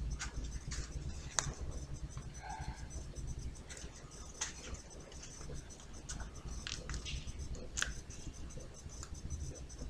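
Paper kaleidocycle being turned through its rings by hand: soft papery rustling and light scattered clicks and scrapes as the folded card flexes at its hinges.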